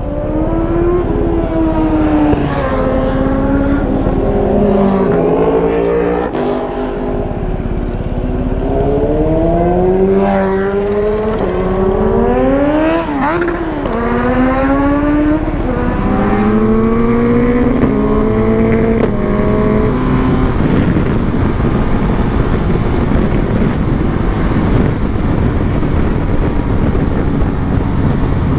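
BMW GS boxer-twin motorcycle pulling away and accelerating through the gears: the engine note climbs and drops back with each upshift for about twenty seconds. It then settles into a steady cruise with wind rush.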